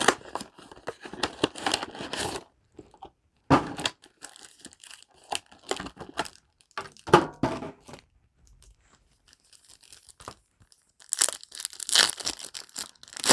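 Foil booster-pack wrappers crinkling and being torn open, in several separate bursts with short pauses between them. The loudest and sharpest burst comes near the end.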